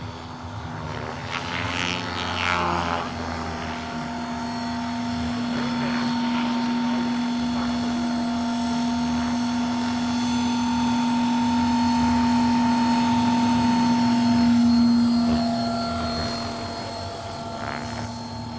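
Large radio-controlled scale model CH-113 Labrador tandem-rotor helicopter running: a steady drone with a higher whine, growing louder until about three-quarters of the way through, then fading.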